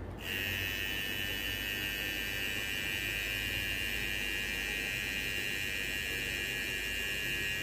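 Gallettz Prinet Slim cordless hair trimmer switched on just after the start and running at a steady speed with a high-pitched whine, its blade freshly oiled.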